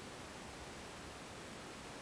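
Steady faint hiss with no distinct sound in it: the self-noise of a camera microphone left running.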